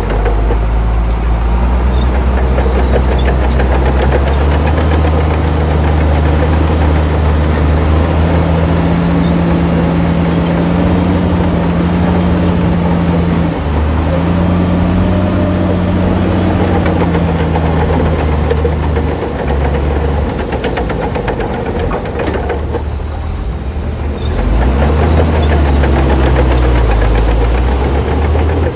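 Heavy diesel engine of earthmoving machinery running under changing load. Its pitch rises a few seconds in, holds, dips briefly about midway, drops around two-thirds through, then revs up again near the end.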